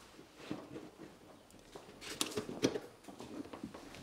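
Plastic front bumper cover of a Tesla Model 3 being pressed onto its mounts by hand: a few quiet, sharp clicks and light knocks, mostly around the middle, as the cover's edges seat against the fender and headlight.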